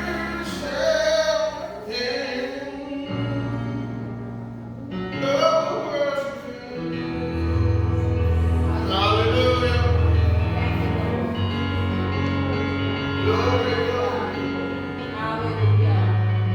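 Gospel song with female and male singing over sustained bass and instrumental backing.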